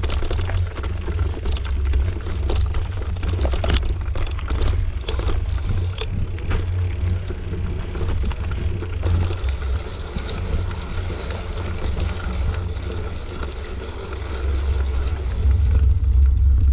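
Wind buffeting a helmet or handlebar camera's microphone as a mountain bike rides a rough dirt trail, with scattered rattles and knocks from the bike and tyres over rocks, thickest in the first half.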